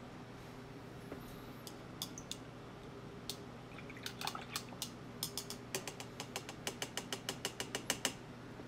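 Paintbrush clicking against a hard container. A few scattered clicks come first, then a quickening run of about six clicks a second near the end.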